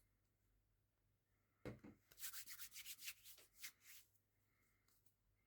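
A soft knock, then about two seconds of quick, hissy rubbing strokes: hands rubbing a cleansing oil into the skin to feel it.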